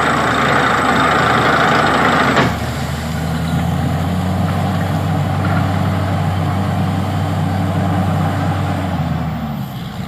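Borewell drilling rig: a loud rush of compressed air cuts off abruptly about two seconds in. The rig's engine keeps running with a steady low hum, then eases off near the end.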